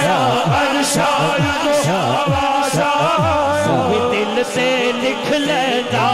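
A male voice singing a naat through a microphone and PA: a long, ornamented melodic line without clear words, over a steady rhythmic low backing.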